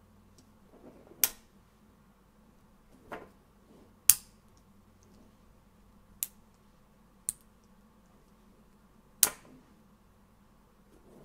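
5 mm magnetic balls clicking sharply together as they snap into place, six clicks at uneven gaps of one to three seconds, with faint handling rustle between them.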